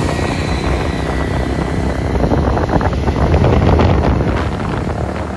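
Wind buffeting the microphone over the running engine and road noise of a motorbike being ridden along a road.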